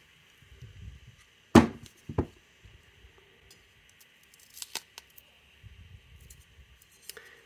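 Warm adhesive strip being peeled by hand off the Bose SoundLink Flex's plastic front grille: soft sticky tearing and handling, broken by a few sharp clicks, the loudest about one and a half seconds in.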